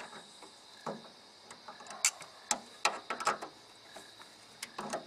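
A hand wrench clinking against the bolts and fittings of a hydraulic spool valve's handle linkage as it is fitted and worked: a handful of sharp metallic clicks at irregular intervals, with a small cluster of them about three seconds in.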